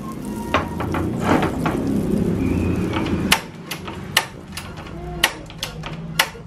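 Metal kitchenware being handled: a few seconds of rustling and scraping, then a string of sharp, irregularly spaced clinks and knocks as a steel ladle holding melted butter meets the stainless steel mixing bowl of flour.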